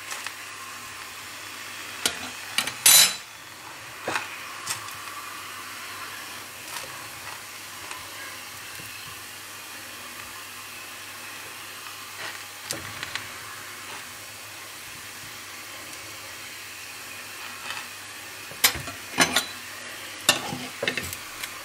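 Patishapta crepe sizzling steadily in a frying pan, with a few sharp clicks and scrapes: the loudest about three seconds in, and a cluster near the end as a metal spatula works in the pan.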